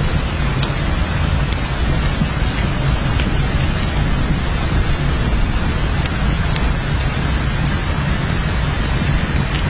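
Steady heavy rain, an even wash of noise with a deep, constant low rumble beneath it and scattered sharp ticks of individual drops.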